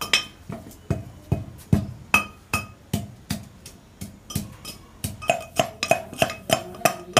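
A pestle pounding garlic and spices in a steel tumbler: steady strokes about two and a half a second, each a dull knock with a short metallic clink. The strokes quicken and ring more about five seconds in.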